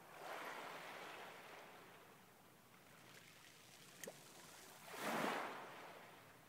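Small waves lapping on a pebble beach: a soft wash over the shingle at the start, a short sharp splash about four seconds in, and a louder wave washing up near the end.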